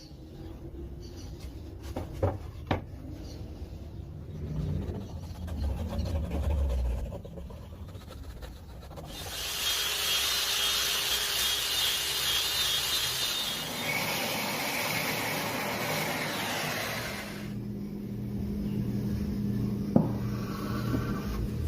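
Wood being worked by hand: quiet handling with a couple of sharp knocks about two seconds in, then a loud, even stretch of rubbing on wood lasting about eight seconds.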